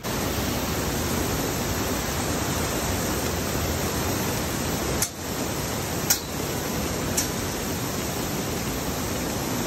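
Heavy rain pouring down, heard as a steady hiss, with three short knocks about a second apart midway through.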